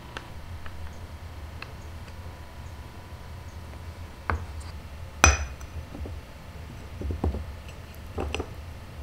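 Light ceramic and glass kitchen handling: a few soft ticks, a sharp ringing clink a little past halfway, then knocks as blueberries tumble from a small glass cup into a ceramic bowl near the end.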